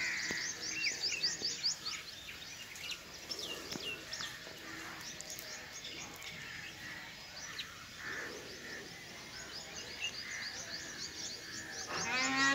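Rural outdoor ambience of birds chirping, with rapid runs of short, high-pitched notes repeating throughout. A short, louder call comes near the end.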